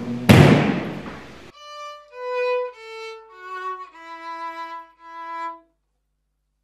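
Music: a loud percussive hit rings out and is cut off abruptly about a second and a half in, then a solo violin plays a short, slow phrase of several held notes, stopping well before the end.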